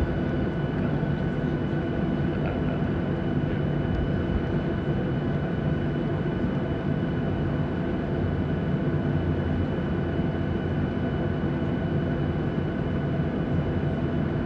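Steady cabin noise of a jet airliner on the ground: the engines running at idle with a faint steady high whine over an even rumble and hiss.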